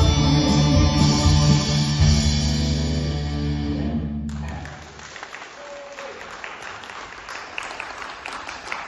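Rock band's final chord ringing out and fading, ending about four seconds in, then audience applause with scattered clapping.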